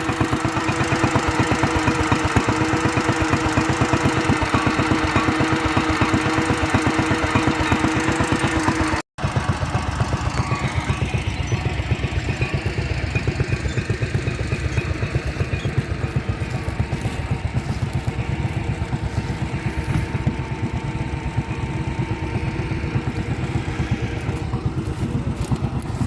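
Vintage tractor engine running steadily, with a rapid, even beat of firing strokes. After a brief cut about nine seconds in, an engine with a duller, less bright note takes over.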